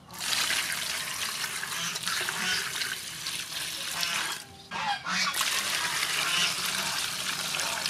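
A stream of water pouring and splashing onto vegetables in a metal basin. The flow breaks off briefly about halfway through, then starts again.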